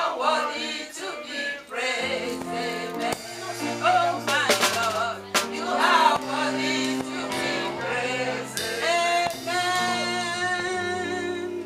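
Gospel song: a voice singing with instrumental accompaniment, whose steady low notes come in about two seconds in.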